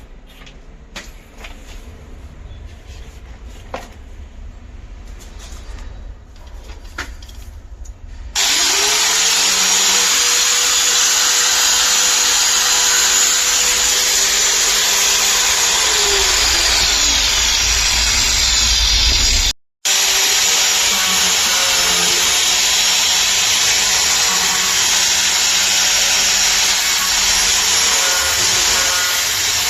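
Light knocks and handling clicks, then an electric power tool, drill-like, starts suddenly about a third of the way in and runs steadily at full speed. Its pitch sags for a moment in the middle, and it cuts out for an instant before carrying on.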